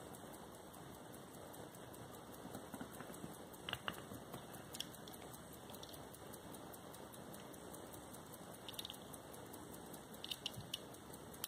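Hamilton Model 992 pocket watch's 21-jewel lever escapement ticking fast and faintly, about five ticks a second, with a few louder clicks from the watch being handled.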